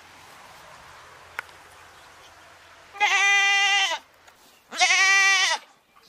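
Goat bleating twice, two loud calls of about a second each, the first about halfway through and the second soon after.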